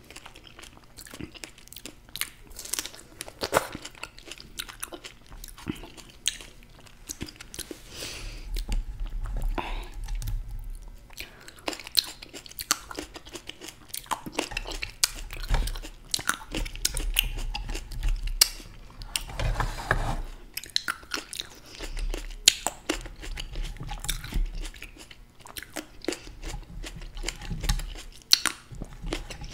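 Close-miked eating sounds: biting into and chewing fresh fruit, a strawberry and then green grapes, with many short, irregular crunches and clicks.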